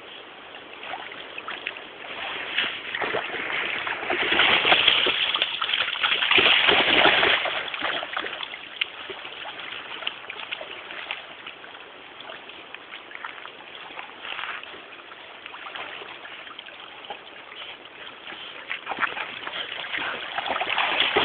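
A dog splashing and paddling about in water, a run of uneven splashes and sloshing; the splashing is heaviest about four to eight seconds in and picks up again near the end.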